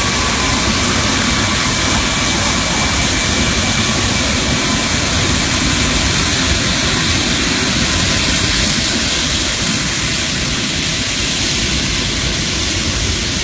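Antonov An-225 Mriya's six Progress D-18T turbofan engines running at taxi power as the aircraft rolls past: a steady, loud jet rumble and hiss. A faint high whine fades after the first couple of seconds, and the sound eases slightly near the end as the aircraft moves away.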